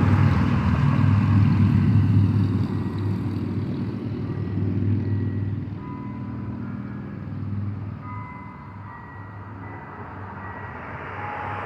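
Low road-traffic rumble that fades over several seconds, with faint distant church bells chiming as a few soft ringing tones in the second half.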